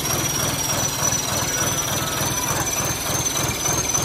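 Sonalika DI-35 Yodha tractor's diesel engine, fitted with an aftermarket turbocharger and running with no silencer on the exhaust, idling steadily with a rapid, even clatter of exhaust pulses.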